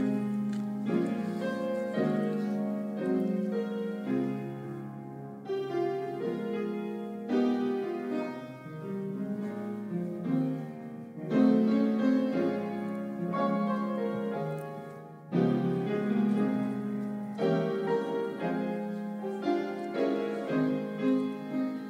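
Instrumental piano music, a slow classical-style piece with notes struck and held in succession.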